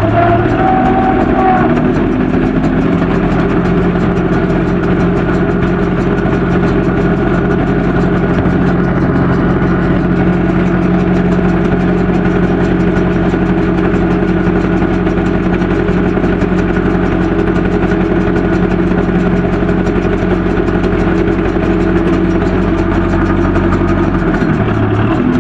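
John Deere tractor's diesel engine running hard at a steady speed while pushing a straw-laden truck. Its note dips briefly near the end.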